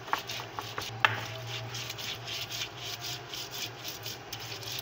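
Stone muller rubbed back and forth on a sil (flat grinding stone), crushing garlic, chillies and herbs into chutney: rhythmic gritty scraping, with a few sharp knocks of stone on stone in the first second.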